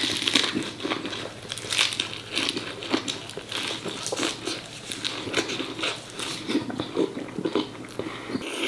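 Close-up mukbang eating sounds: biting and chewing braised pork offal (phá lấu), heard as a dense, irregular run of crunches and clicks.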